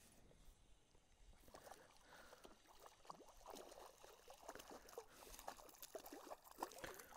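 Faint, irregular splashing of a hooked fish thrashing at the water's surface as it is reeled in on a spinning rod, starting about a second and a half in and strongest near the end.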